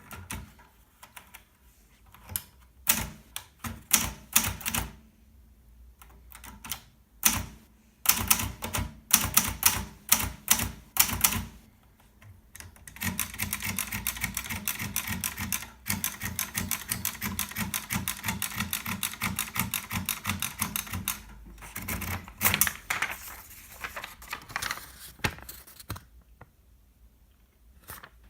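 Hermes Baby portable typewriter being typed on: scattered single keystrikes, then a fast, unbroken run of keystrikes lasting about eight seconds from near the middle, then a few more strikes before it stops near the end.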